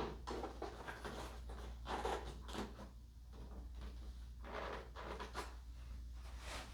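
Irregular rustling, scraping and soft clicks of parts being handled during assembly of a foam model airplane, over a steady low hum.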